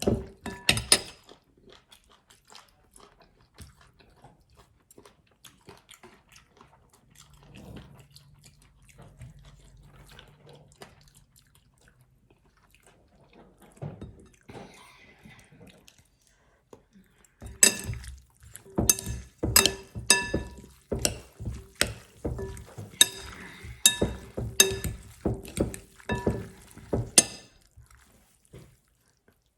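A utensil clinking repeatedly against a bowl: a few faint knocks at first, then a fast run of sharp clinks through most of the second half, each ringing on the same note, as food in the bowl is mixed.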